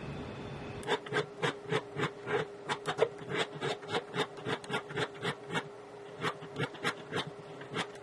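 Small hand file rasping along the edge of a metal dog tag in short quick strokes, about three or four a second, starting about a second in, over a faint steady hum.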